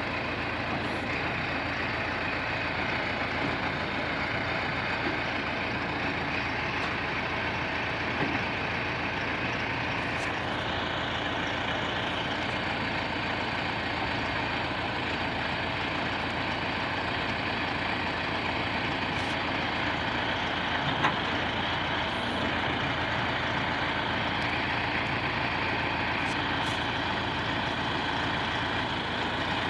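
Tractor engine running steadily near idle, its tone shifting slightly about ten seconds in, with a couple of faint knocks.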